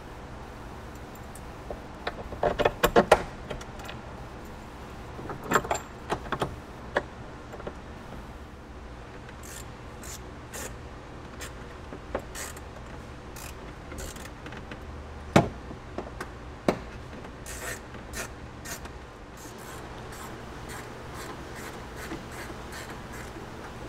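Hand tools and bolts clinking: a hex key and driver working bolts into the floor, metal tapping and scraping on metal. There is a quick flurry of clicks a couple of seconds in, another around six seconds, one sharp knock near the middle, and light scattered ticks through the rest.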